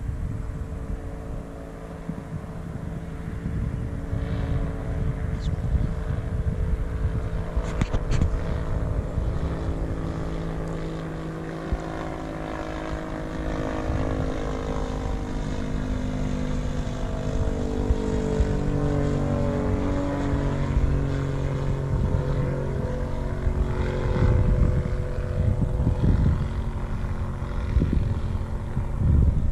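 Titan Tornado light aircraft flying past, its engine and propeller droning steadily with the pitch shifting as it goes by. Wind rumbles on the microphone underneath.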